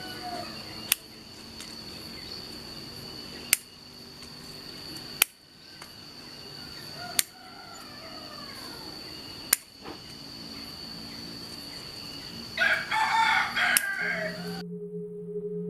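Scissors snipping twigs off a mulberry bonsai during pruning: about five sharp single snips, two or three seconds apart. A rooster crows in the background, loudest near the end, before the sound cuts off.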